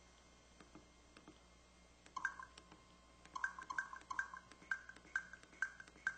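LG KH1000 mobile phone key-press beeps: a few faint button clicks, then from about two seconds in a string of short electronic beeps, one with each click of a key, about eight or nine in under four seconds.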